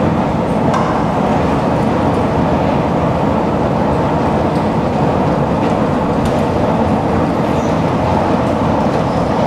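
Long escalator running, a loud steady rumble with a few faint clicks.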